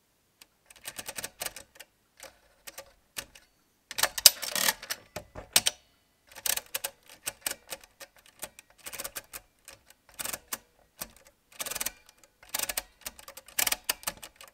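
Setting levers of a Walther WSR 160 pinwheel mechanical calculator being pushed through their detents, giving bursts of quick metallic clicks. The loudest, densest burst comes about four seconds in.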